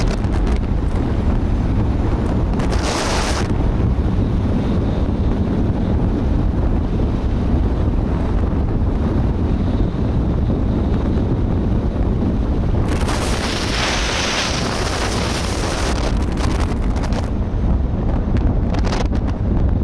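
Wind buffeting the microphone of a camera on a moving car, a steady heavy rumble mixed with road noise. A short burst of louder hiss comes about three seconds in, and a longer one about two-thirds of the way through.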